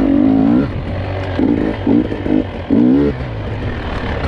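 Two-stroke GasGas enduro motorcycle engine under riding load, in several short bursts of throttle with the pitch rising on each, dropping back to a lower running note in between.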